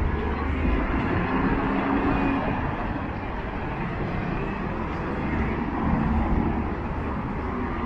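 Busy city street ambience: a steady low rumble of traffic mixed with the general noise of the area.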